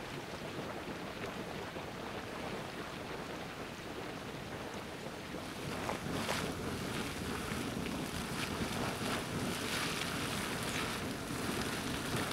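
Steady rushing noise of wind and steam venting over a thermal basin; about halfway through it becomes louder and hissier as a small geyser sprays water and steam, with brief surges.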